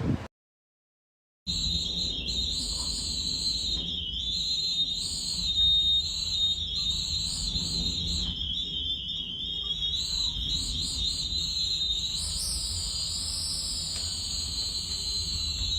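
Storm wind whistling: a high whistle that wavers up and down in pitch over a steady low rumble, starting abruptly after a second or so of silence.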